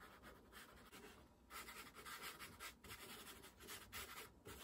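Faint scratchy strokes of a pastel stick rubbed across paper, a series of short strokes that come more often after the first second or so.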